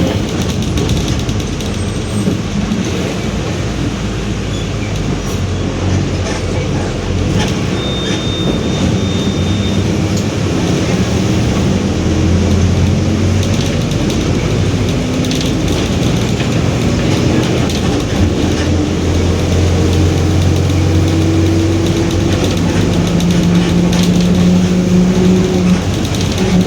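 Mercedes-Benz OF-1721 BlueTec 5 city bus under way: its diesel engine runs steadily beneath a droning, growling whine from the differential. The whine slowly rises in pitch over the second half as the bus gathers speed.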